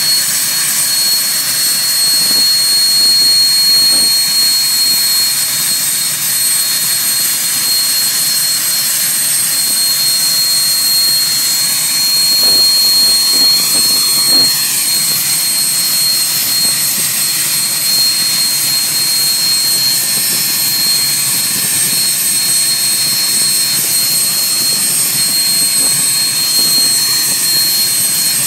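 Learjet 25's number one engine, a General Electric CJ610 turbojet, running steadily on the ground: a loud, steady high-pitched whine over a hiss.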